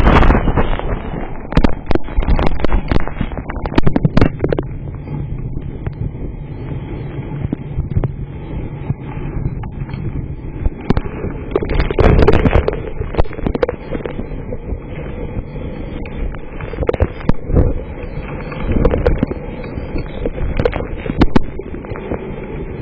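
Strong storm wind gusting and buffeting the microphone in loud surges, with hailstones striking at irregular intervals as sharp knocks.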